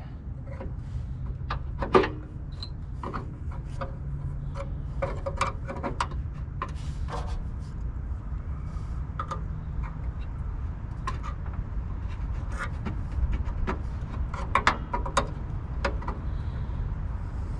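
Screwdriver and pick scraping and clicking against a jammed hood latch mechanism as they are worked up through a hole to trip it, in short irregular scrapes and taps over a steady low hum.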